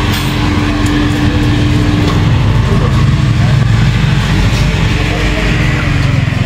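A motor vehicle's engine running steadily, a constant low drone with a noisy rush over it; a steady hum above the drone stops about two seconds in.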